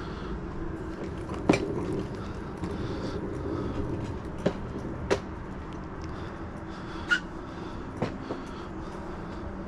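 Steady low rumble with a handful of sharp knocks and clacks, the loudest about a second and a half in and others around four and a half, five, seven and eight seconds in.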